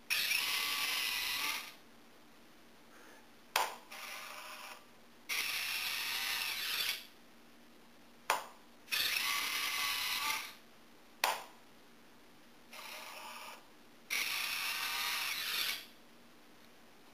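Small RC landing-gear retract motor cycling a rotating main gear up and down. Four whirs of about a second and a half each, most of them set off by a sharp click, with two quieter, shorter whirs in between.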